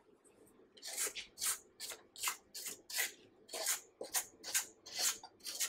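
Silicone spatula scraping thick cake batter off the sides of a stainless steel stand-mixer bowl, in quick repeated strokes about three a second, starting about a second in.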